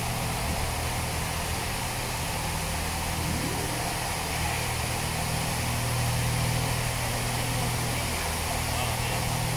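Leisuwash S90 touchless car wash machines running: a steady machine hum with low tones under the even hiss of high-pressure water spray.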